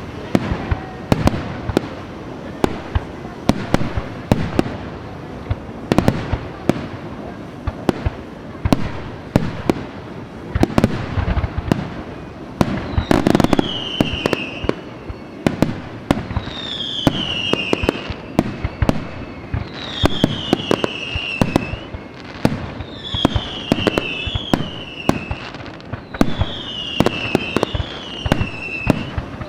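Fireworks going off: a dense run of sharp bangs and crackles. From about halfway through, high whistles fall in pitch again and again, each lasting about a second.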